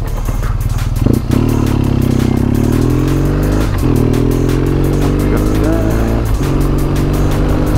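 2006 BMW R1200GS boxer-twin engine accelerating, its pitch climbing steadily and dropping at an upshift every two to three seconds.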